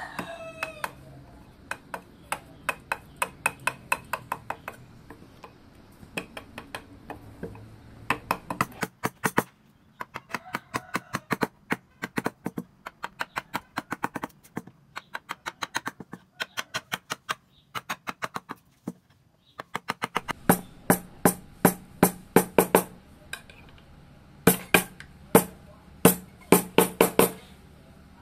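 Wooden mallet tapping a carving chisel into wood: quick, even strikes at about four to five a second, in runs with brief pauses, the strikes growing louder in the last third.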